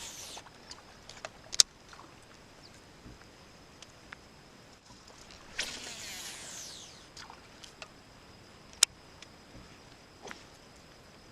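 A fishing reel's line whirring off the spool during a cast about halfway through, falling in pitch as the spool slows, with a few sharp clicks.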